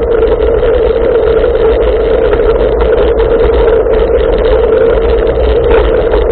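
Bicycle riding fast on a tarmac path: steady wind rumble on the microphone with a constant hum of tyres on asphalt.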